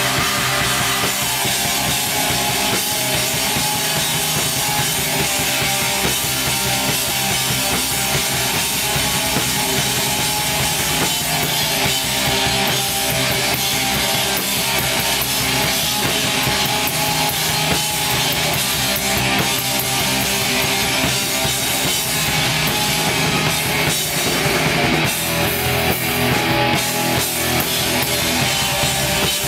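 A black metal band playing live and loud: electric guitars over a drum kit, continuous with no break.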